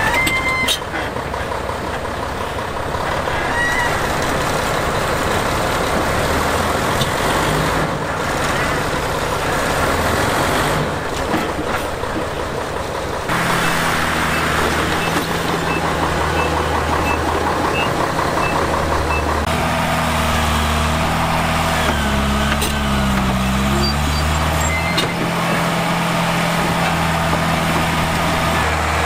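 Heavy diesel construction machinery running: a mini Komatsu bulldozer and a dump truck working, with a steady engine drone whose pitch dips and rises a little past the middle. A short row of evenly spaced high beeps, a reversing alarm, sounds for a few seconds after the halfway point.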